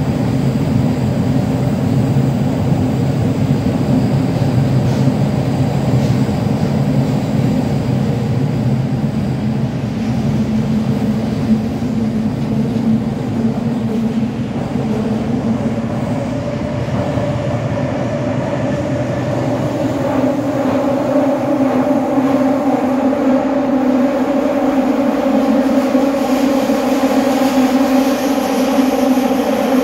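Running noise inside a Toei Oedo Line 12-000 series linear-motor subway car in motion, with its Mitsubishi Line-Delia ceiling line-flow fan running: a steady rumble and hum. In the second half a set of humming tones grows stronger and shifts in pitch.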